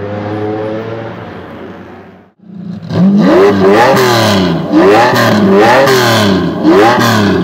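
A car engine running steadily and fading out, then after a short break a Lamborghini Diablo GT's V12 revved hard in a string of quick blips, each rising and falling in pitch.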